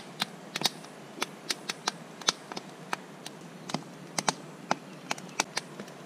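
Light, irregular clicks and taps, about three a second, from fried meat slices being picked out of a plastic bowl by hand and laid on a pizza base.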